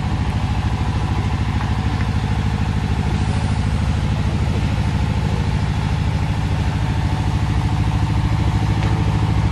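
An engine running steadily at constant speed: a low, evenly pulsing drone that does not change.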